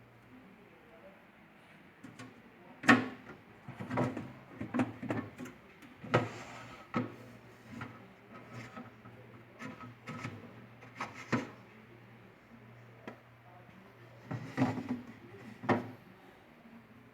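Irregular knocks and clatters of a refrigerator's plastic fittings being handled, such as drawers, shelves and door bins, over a low steady hum.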